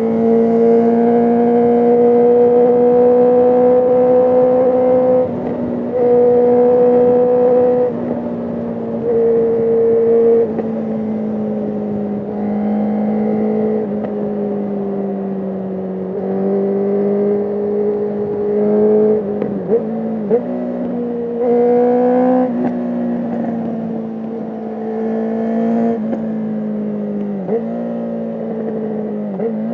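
Sport motorcycle engine running at steady high revs under way, with the throttle opened and eased off several times. A few quick dips and rises in pitch come in the second half.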